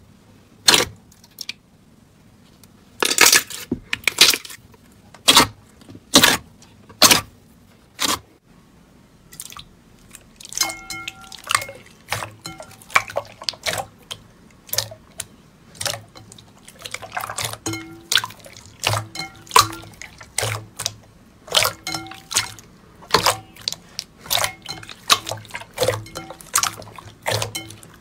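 Hands pressing and squishing clear slime, making sharp wet pops and clicks one at a time for the first several seconds, then a denser, quicker run of wet clicking and squishing.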